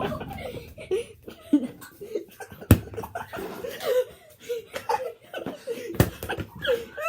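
A person laughing in short, broken bursts, with two sharp impacts, one a little before the middle and one near the end.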